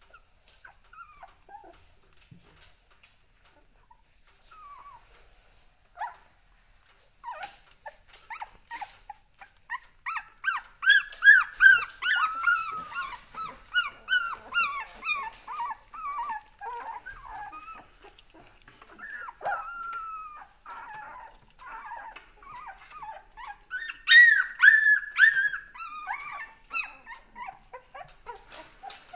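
Two-week-old Dalmatian puppies whimpering and squeaking in short high cries. A few come at first, then a fast run of them about ten seconds in and a louder run near the end.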